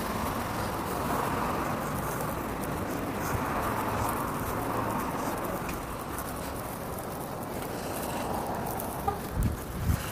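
Steady hiss of street traffic, cars running on a nearby road, a little louder in the first half. A few low thumps near the end.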